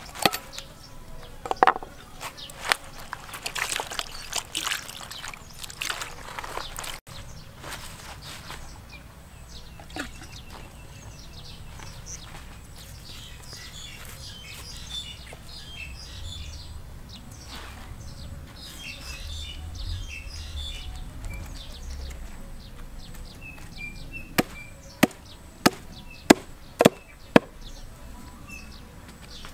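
A knife scraping and cutting at a lizard's scaly hide. After that comes a quieter stretch with birds chirping. Near the end there are about six sharp chops of a knife blade on a wooden block.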